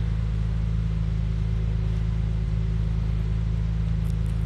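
Steady low engine hum, holding one pitch with no revving.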